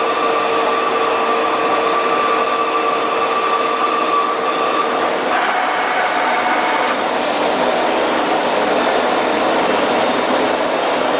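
Large-bore CNC pipe-threading lathe running with a steady mechanical whine. About five seconds in, the pitch of the whine shifts higher.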